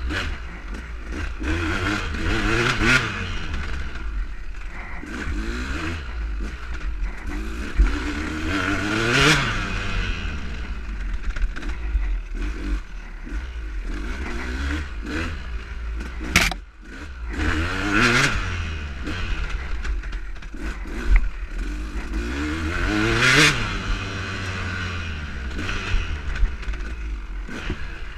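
KTM 200 EXC two-stroke single-cylinder dirt bike engine revving up and dropping off again and again as the bike accelerates out of tight corners, with four big rises in pitch. Under it run a steady low rumble and frequent clicks and knocks from riding over rough ground.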